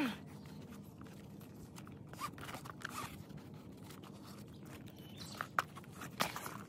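A bag's strap being worked through its buckle by hand: faint scrapes and rustling with a few small clicks, the sharpest about halfway through and near the end.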